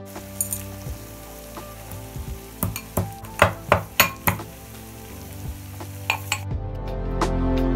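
Aluminium pestle pounding whole cardamom, cinnamon and clove in an aluminium mortar: a quick run of sharp metallic strikes about halfway through, then one more. Background music comes back near the end.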